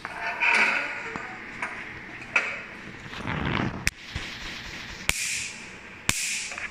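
A dark test sheet rustles as it is handled, then the picosecond laser handpiece fires onto it: sharp snaps about a second apart near the end, each with a brief hiss, as the pulses mark the sheet.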